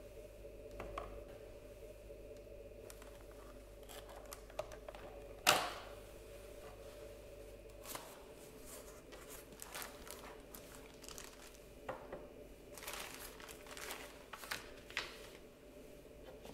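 Hands handling the plastic parts of a Dyson ball upright vacuum and then cardboard and paper packaging: scattered clicks and rustles, with one sharp snap about five and a half seconds in and a run of rustling near the end.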